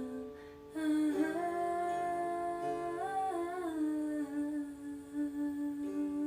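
A voice humming long held notes as a sound meditation: one note ends under a second in, then a new note is held, sliding up and back down in pitch in the middle, over a steady underlying drone.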